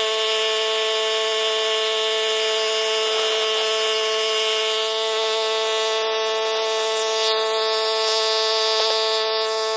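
Cub Cadet 760 ES 33-inch walk-behind mower running steadily while mowing, a constant hum that holds one pitch throughout.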